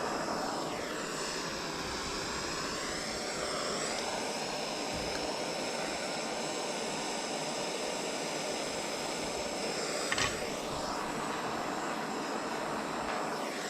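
Handheld gas torch burning with a steady hiss, heating a copper fitting for sweat soldering; its tone wavers as the flame is moved over the joint. There is a brief knock about ten seconds in.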